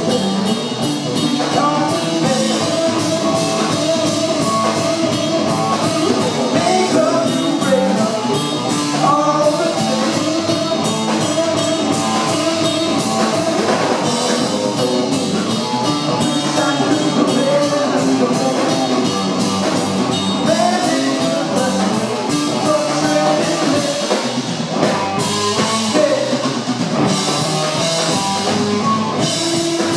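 Rock band playing live: a drum kit with busy cymbal and drum strokes over bass guitar and guitar.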